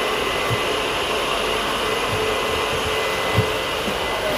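Steady whirring rush of air from the air-conditioning of an Indian Railways 3rd AC sleeper coach, with a faint high whine held throughout. A few soft knocks come through, the loudest about three and a half seconds in.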